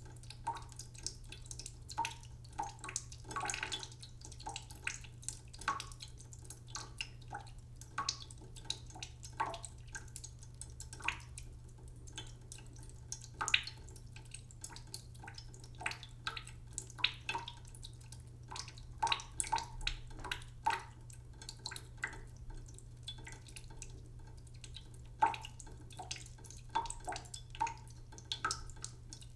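Cooking pot filling slowly from a faucet in a sink: a thin trickle and drops falling into the water, making irregular pitched plinks several times a second. A steady low hum runs underneath.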